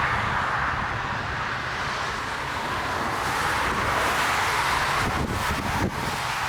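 Jet airliner engine noise, a steady rushing sound, mixed with storm wind buffeting the microphone.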